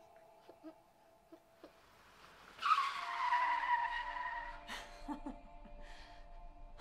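Soft sustained music tones, then about two and a half seconds in a sudden screeching hiss that falls slightly in pitch and fades over about two seconds.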